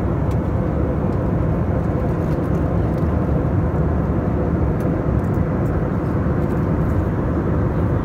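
Steady cabin noise of a jet airliner in flight: the even, deep rush of engines and airflow heard from a passenger seat.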